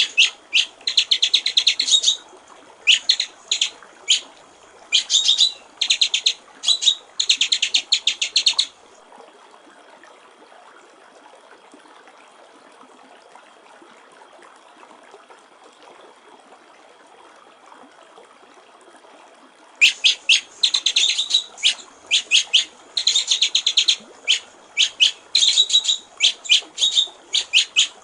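White-rumped shama (murai batu) singing in bursts of rapid, rattling repeated notes. It falls silent for about eleven seconds in the middle and then starts again. A steady trickle of water runs underneath throughout.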